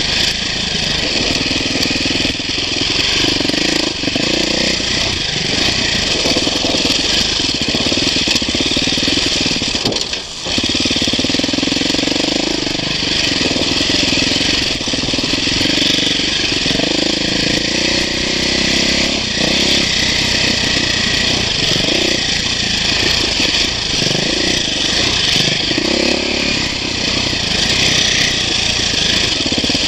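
2008 KTM 450 XC-F dirt bike's single-cylinder four-stroke engine running under way on a trail, its revs rising and falling with the throttle. The engine sound dips briefly about ten seconds in.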